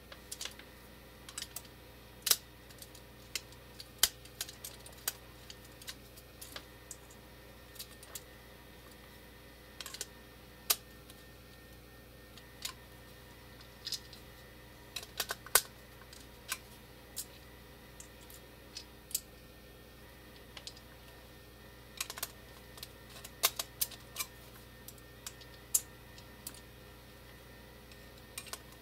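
Scattered sharp clicks and taps from handling a Siemens 3TB41 relay: multimeter probe tips and a screwdriver knocking against its terminals and plastic case as the plunger is pushed in by hand. A faint steady hum lies underneath.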